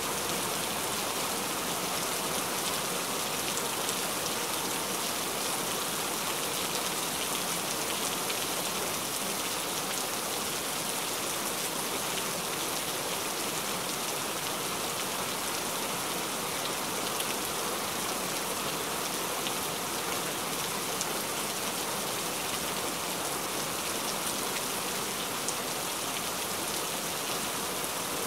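Steady rain falling: an even, unbroken hiss with faint scattered ticks of single drops.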